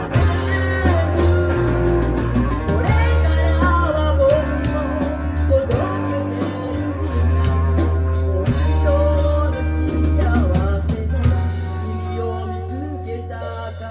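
Live band playing an instrumental stretch of a pop-rock song, with a steady bass line, drums and a wavering lead melody.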